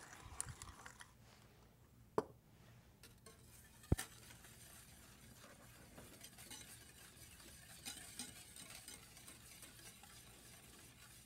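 A wire whisk stirring lemon butter sauce in a skillet: a faint scratchy rustle, with two sharp clicks about two and four seconds in. A pepper mill grinds briefly at the start.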